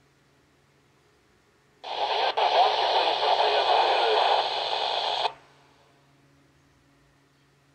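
Yaesu FT-60 handheld radio's speaker receiving a UHF satcom transmission: about two seconds in, a harsh, hissing burst of signal comes through for about three and a half seconds, then cuts off abruptly.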